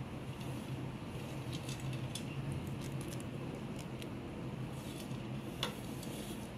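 Steady low background hum with a few faint light ticks.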